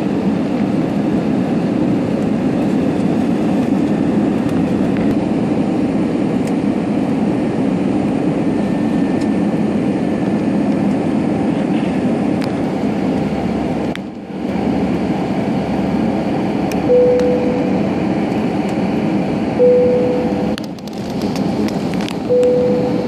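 Steady low rush of airliner cabin noise during the descent to land. In the second half, three short beeps at the same pitch come a few seconds apart.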